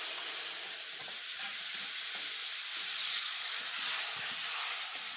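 Wet ground masala sizzling with a steady hiss as it hits hot mustard oil in a kadhai and is stirred with a flat metal spatula.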